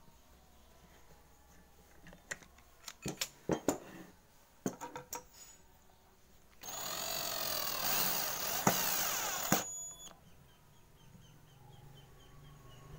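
A few light clicks and knocks of tools and wood being handled, then a cordless drill-driver runs for about three seconds, its pitch wavering as the trigger is eased, and stops sharply.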